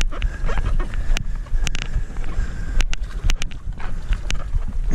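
Wind rumbling on the microphone, with scattered sharp clicks and knocks from footsteps on shoreline rock and a canoe carried overhead on a portage.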